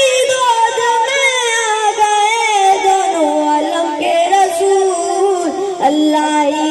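A boy's voice singing a naat unaccompanied, drawing out long ornamented notes that slide up and down, settling on a lower held note in the second half.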